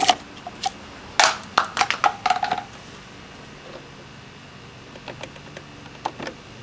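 Clatter of hard plastic and metal items being handled, a quick run of sharp clicks and knocks with brief ringing, then a few softer knocks near the end, as the oil-filling gear is taken down from the engine bay.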